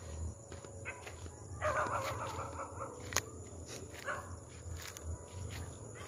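An animal calling: one wavering call about a second long some two seconds in, and a shorter call a couple of seconds later, over footsteps through grass.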